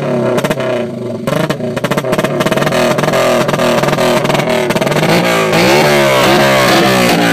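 Honda Monkey Baja minibike's single-cylinder four-stroke engine running with the exhaust silencer removed, loud and harsh. The throttle is blipped in repeated quick revs, which come faster and closer together from about five seconds in.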